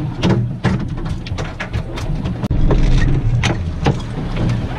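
Wind rumbling on the microphone on a kayak in rough sea, getting louder about halfway in, with a string of short, irregular knocks.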